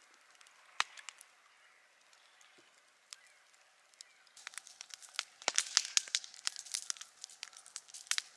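Wood campfire crackling, with scattered sharp pops that come thicker and louder over the last few seconds.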